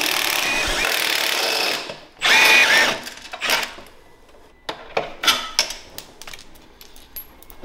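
Milwaukee Fuel cordless impact wrench with a 14mm socket spinning a rear shock mount bolt loose. It runs for about two seconds, then again briefly about two seconds in, followed by light metallic clicks of the bolt and wrench.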